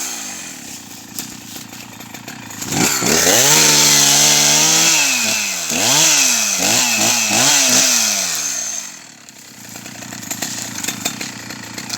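Two-stroke chainsaw falling back to idle, then revved high for a couple of seconds, blipped up and down several times in quick succession, and left idling again.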